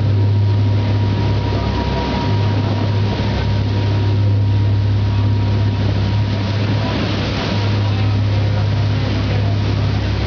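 A ferry's engines droning steadily, with a constant hiss over the low hum and a faint thin whine that fades out about halfway.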